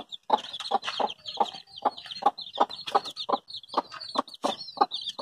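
A mother hen clucking steadily in short low clucks, about three or four a second, while her chicks peep continuously in high, wavering chirps.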